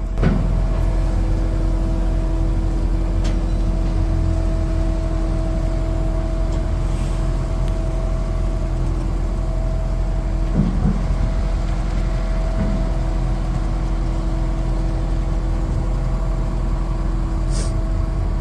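Heavy diesel machinery running steadily, a deep rumble with a constant whine over it, with a sharp knock at the start and a brief change in the sound about ten seconds in.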